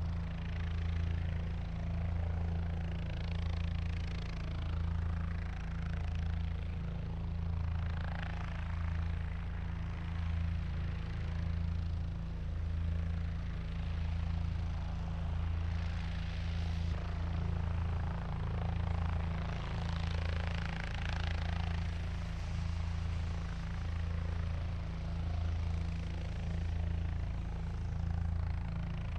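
Helicopter in flight: a steady, pulsing low rotor beat under a whooshing hiss that swells and fades every few seconds.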